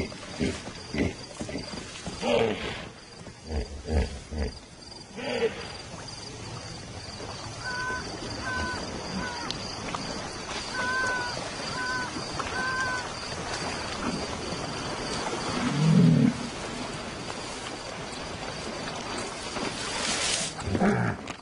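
Night sounds of hippos and young lions: a quick run of deep grunts over the first five seconds and one loud low grunt about sixteen seconds in. Underneath runs a steady night hiss with a thin high insect drone, and a few short chirping calls come midway.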